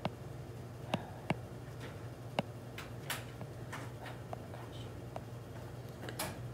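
Light taps and clicks on an iPad touchscreen while a drawing tool and ink colour are picked, with a few sharp taps in the first two and a half seconds and softer scratchy strokes later, over a low steady hum.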